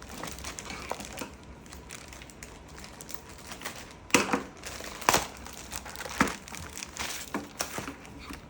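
Toy packaging crinkling and crackling as it is handled and unfolded, with a few sharper, louder crackles about four, five and six seconds in.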